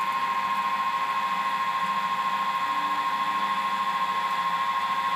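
Chugger brewing pump motor running with a steady high-pitched whine, recirculating wort through the mash.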